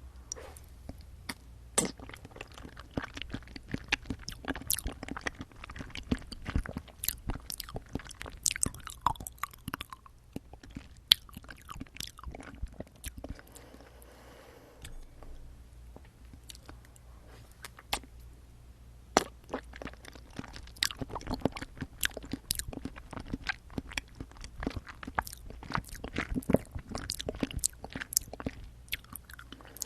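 Close-miked chewing of jelly straw jelly: a dense run of wet, sticky mouth clicks and smacks, easing off to a quieter stretch around the middle before picking up again. A steady low hum sits underneath.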